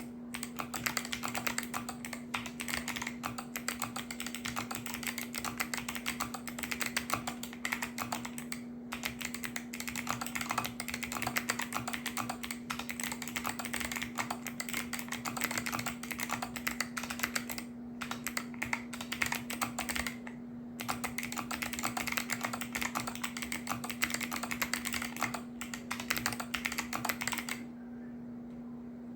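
Fast, continuous typing on an Akko Monsgeek M1 mechanical keyboard with Kailh Box Jade clicky switches and XDA keycaps: a dense stream of crisp clicks, pausing briefly a few times and stopping near the end. A steady low hum runs underneath.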